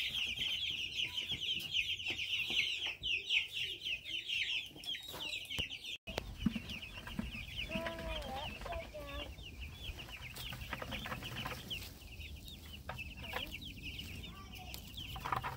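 A flock of two-week-old meat chicks peeping continuously: a dense chorus of short, high peeps. About six seconds in the sound cuts briefly, and the peeping goes on more faintly over a low outdoor hum.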